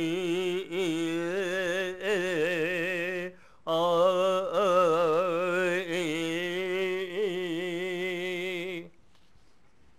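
A man singing long held notes with a strong vibrato into a microphone, in two phrases with a short break about three and a half seconds in. The last note cuts off abruptly about nine seconds in.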